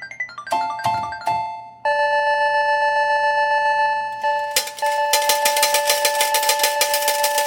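Casino slot machine's electronic sounds: a quick run of stepping beeps, then three chime strikes about half a second apart, then a held electronic chord. About five seconds in, a fast, even ticking starts up under the chord.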